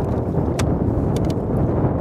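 Wind buffeting the microphone: a steady low rumble, with a few light clicks about half a second in and again just after a second.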